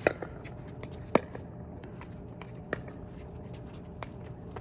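A pickleball rally: sharp pops of paddles striking the plastic ball and the ball bouncing, several spaced strokes, the loudest at the very start and about a second in.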